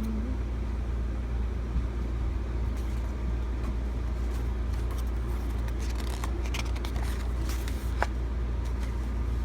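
A steady low rumble, with light rustling and small clicks of paper and plastic album inserts being handled, busiest from about six to eight seconds in, with one sharp click near the end.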